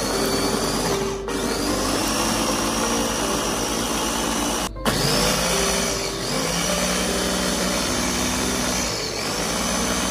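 Electric bowl-type food chopper running, its blades mincing onion, garlic, ginger and chillies. The motor whine dips and spins back up several times, with a brief break a little before the middle.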